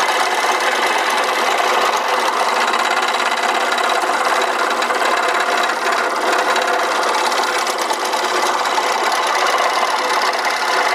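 Electric scroll saw running steadily, its reciprocating blade cutting through a thin wooden strip.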